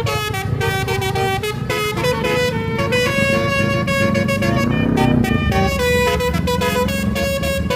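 Bus 'basuri' telolet horn playing a fast melody of short, changing notes, over the steady low rumble of the bus engine.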